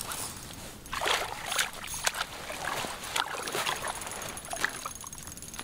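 Water splashing and sloshing in an ice-fishing hole as a hooked brown trout thrashes at the surface and is lifted out by hand, in irregular splashes.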